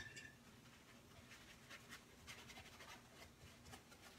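Near silence: room tone with a few faint, short taps and rustles.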